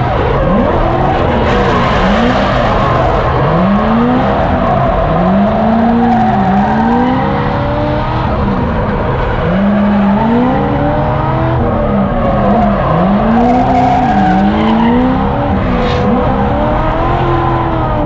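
Drift car engine revving hard, its pitch repeatedly climbing and dropping as the throttle is worked, over the continuous screech and hiss of tires sliding.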